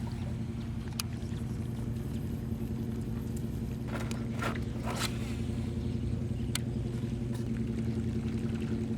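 Boat motor running steadily with an even hum, with a few short sharp ticks or knocks over it.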